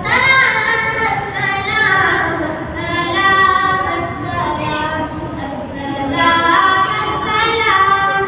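A boy singing a naat, a devotional poem in praise of the Prophet, unaccompanied into a microphone, in long held notes that slide from pitch to pitch.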